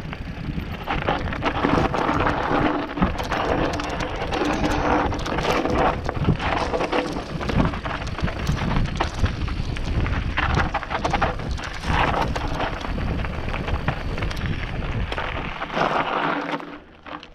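Mountain bike riding down rocky singletrack: tyres crunching over loose stones and the bike rattling with many small knocks, with wind buffeting the action-camera microphone. The noise drops off sharply near the end.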